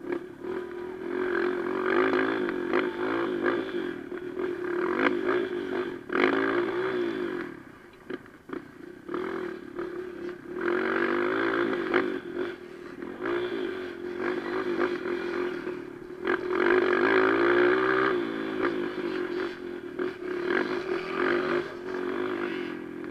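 A dirt bike's engine heard from a camera mounted on the bike, revving up and dropping off again and again as the throttle is opened and closed. Rattling and scraping from the rough track run underneath it.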